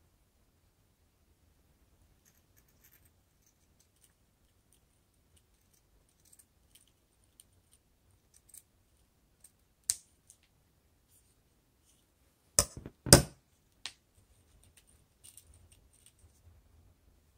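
Scissors snipping a plastic drinking straw lengthwise into thin strips: scattered faint clicks and snips, a sharper snap about ten seconds in, then two louder knocks close together a few seconds later, the loudest sounds here, followed by faint ticks of the plastic strips being handled.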